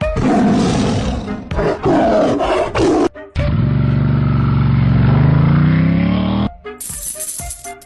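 A loud animal roar in two parts. First a rough, noisy roar, then a longer, deeper one that rises slightly in pitch and cuts off suddenly about six and a half seconds in. Music with a rattle comes in near the end.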